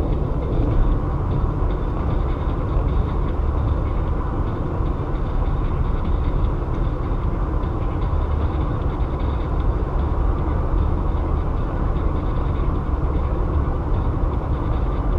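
Steady road and tyre noise with a low rumble from a car driving along the interstate.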